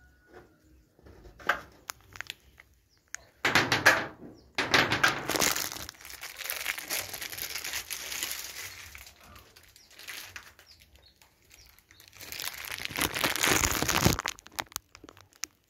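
Rustling, scraping and crackling with a few sharp knocks as someone climbs up into a ceiling space and moves about, loudest about three and a half seconds in and again near the end.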